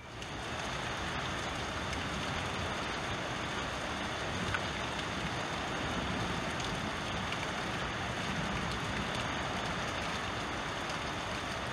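Heavy downpour: a steady hiss of rain, with water running and splashing down a cup-style rain chain.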